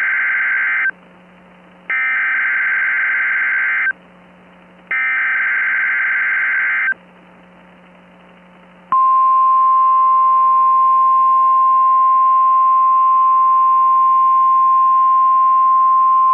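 Emergency Alert System SAME header on NOAA Weather Radio: three harsh, buzzy data bursts, each about two seconds long and a second apart, the first already sounding at the start. About nine seconds in comes the 1050 Hz weather-radio alert tone, a single steady pitch, marking a Required Monthly Test.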